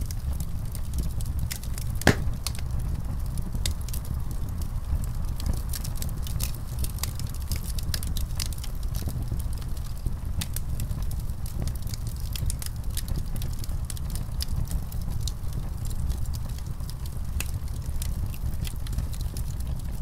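A fire burning, with a steady low rumble under frequent sharp crackles and pops. One louder pop comes about two seconds in.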